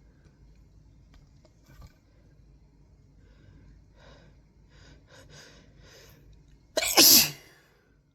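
A person sneezes once, loudly, near the end, the pitch of the sneeze dropping as it goes. It follows several faint, short catching breaths that build up to it.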